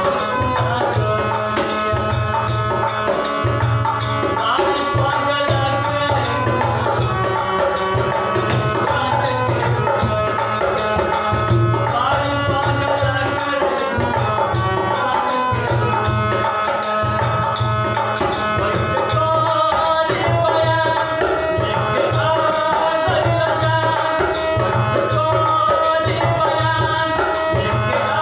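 Harmonium playing a bhajan melody in held, steady notes over a steady hand-drum beat, with small hand percussion.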